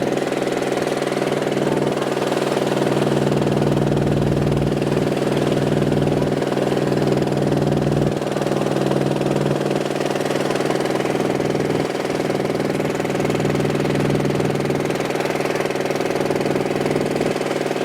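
Boat's engine running steadily at a constant pitch.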